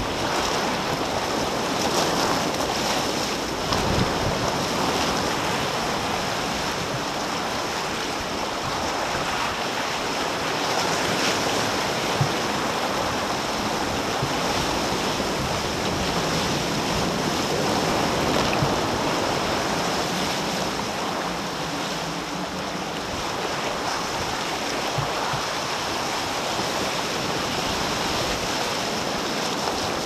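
Sea water rushing and breaking along the hull of an ocean racing yacht sailing at speed, the bow wave foaming and spraying beside it. A steady rush, with a few brief knocks.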